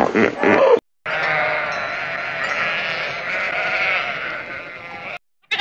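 For under a second, the end of a hippopotamus's pulsed grunting call; then, after a brief gap, a flock of sheep bleating together, many overlapping calls, for about four seconds.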